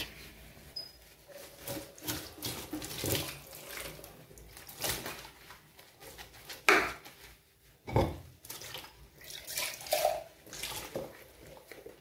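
Dishes being washed by hand in a stainless-steel sink: water splashing, a sponge scrubbing, and irregular clinks and knocks of mugs, plates and pots.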